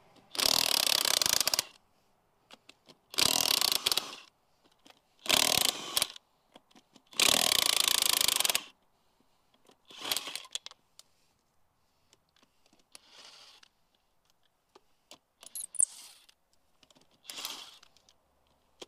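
Cordless impact wrench loosening a wheel's lug nuts, running in four bursts of about one to one and a half seconds each, then a few shorter, quieter bursts.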